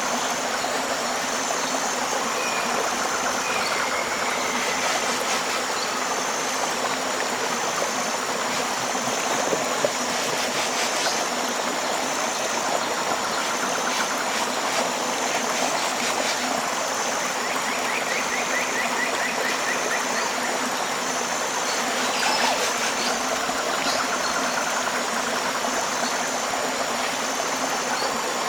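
A tropical river flowing in a steady rush, with a high pulsing call repeating about once a second and a few bird chirps and trills.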